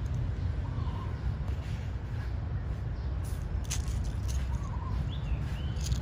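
A steady low rumble with a few short bird chirps: one about a second in, another past the middle, and two brief higher rising-and-falling calls near the end. A few faint clicks come between them.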